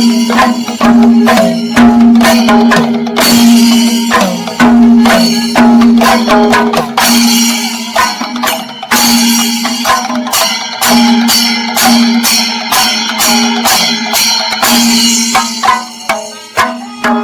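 Kerala chenda drum ensemble playing dense rapid strokes with bright ilathalam cymbals, over a steady held tone.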